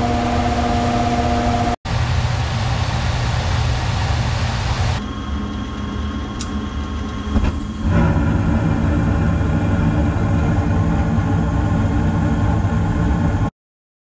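Failing blower motor of an ICP Comfortmaker 90% gas furnace running: a steady whir with a hum in the first two seconds. Abrupt edits at about two, five and eight seconds change its tone, and it cuts off suddenly just before the end.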